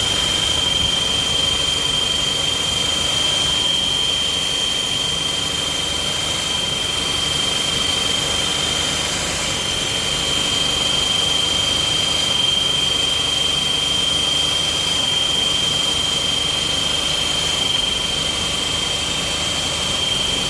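Audi A4 1.8 TFSI's turbocharged four-cylinder petrol engine running steadily, with a high-pitched squeal held at one pitch throughout.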